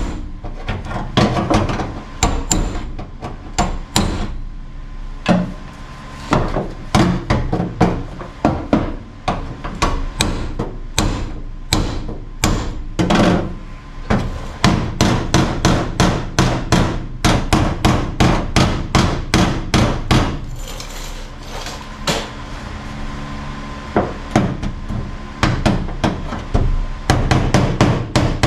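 Ball-peen hammer, ball side, striking a steel floor-pan channel in a car body, rounding it out so it meets the floor before welding. Sharp metal strikes in irregular runs, fastest at about four a second in the middle.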